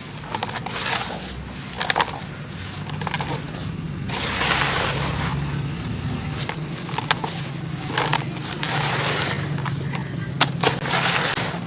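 Charcoal sand-cement chunks crumbling in water: a steady fizzing crackle with sharp cracks and pops scattered through it.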